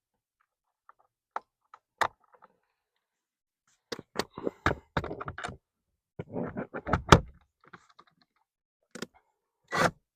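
Irregular knocks, clicks and thunks of hard plastic parts and hand tools being handled while a blower motor is fitted under a car's dashboard. They come in two dense clusters in the second half, with the sharpest knock about seven seconds in.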